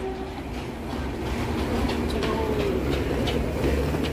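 A train horn's note ends just after the start, followed by a steady low rumble with scattered light clicks of a train moving on the tracks.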